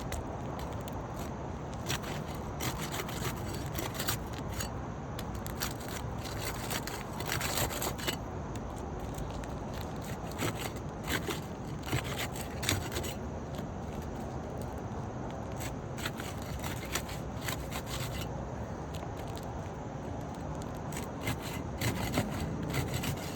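Asphalt roof shingle being pried up from its sealant strip: irregular scraping and crackling with many small clicks, as the brittle shingle comes unstuck and tears at the corner. A steady low rumble runs underneath.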